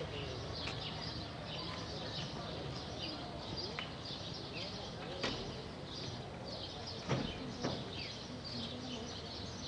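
Many small birds chirping steadily in short, repeated calls, with a few sharp knocks about five and seven seconds in.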